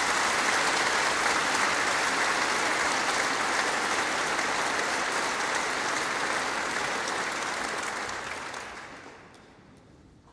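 Large concert-hall audience applauding steadily, the applause dying away over the last two seconds.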